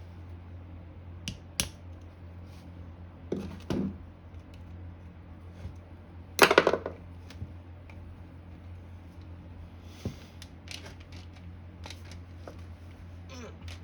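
Small metal motor parts and hand tools being handled on a workbench: scattered clicks and knocks, short scrapes and rattles, loudest in a brief clatter about halfway through, over a steady low hum.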